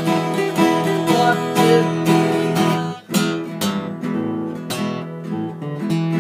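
Two acoustic guitars strummed together in a steady chord rhythm, with a short drop in loudness about three seconds in.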